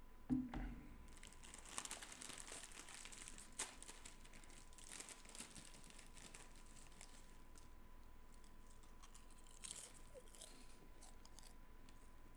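Crinkling and rustling, as of a wrapper or paper handled close to the microphone, in scattered bursts with a soft thump near the start, over a faint steady high tone.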